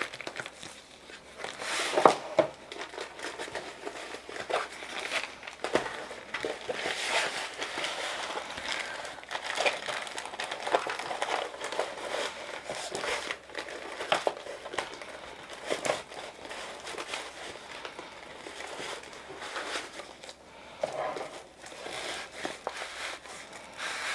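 Plastic wrap and cardboard crinkling and rustling as a rolled diamond-painting canvas is handled and pushed into a cardboard box too small for it, with irregular sharp clicks and knocks, the loudest about two seconds in.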